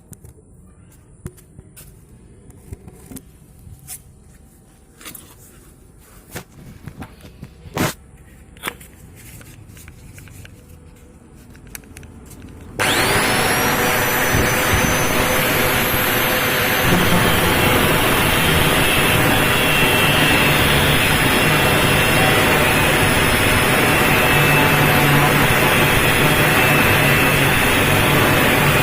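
Scattered clicks and knocks of handling, then about thirteen seconds in an angle grinder starts, whining up to speed, and runs steadily as it cuts through the steel casing of a refrigerator compressor.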